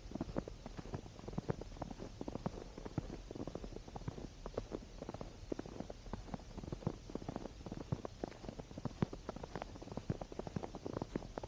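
Footsteps crunching through snow: a steady stream of small irregular crackles from boots packing the snow.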